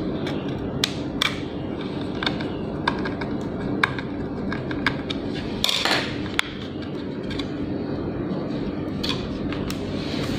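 Scattered light clicks and taps of small laptop hardware and tools being handled, with a short scrape about six seconds in, over a steady low hum.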